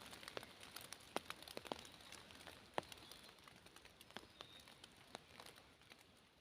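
Light rain dripping: scattered single drops ticking irregularly over a faint hiss, thinning out toward the end.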